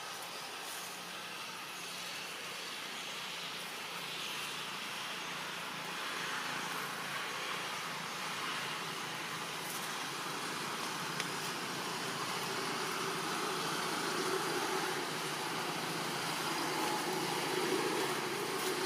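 Steady outdoor background noise: an even hiss with a faint low hum, like distant traffic, slowly growing louder.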